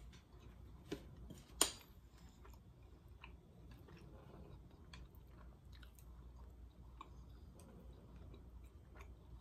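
A person chewing food with wet mouth sounds, faint, with scattered sharp clicks; the loudest click comes about a second and a half in.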